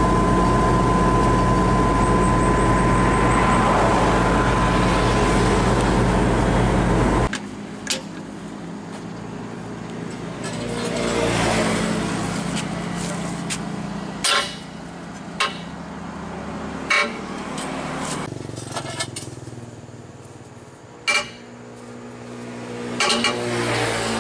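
A heavy diesel engine running loud and steady at one pitch, cutting off abruptly about seven seconds in. Then a quieter engine ticks over, a swell of engine noise rises and falls around eleven seconds, and a few sharp metal clanks come from a wheel wrench and long pipe extension being worked on a truck's wheel nuts.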